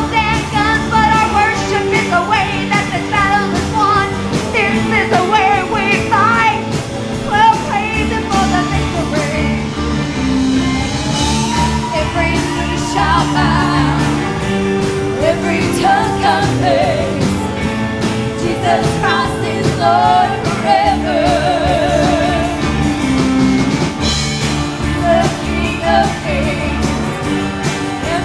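Live gospel praise music: a band playing sustained chords over a steady beat, with a singer's wavering melody line over it.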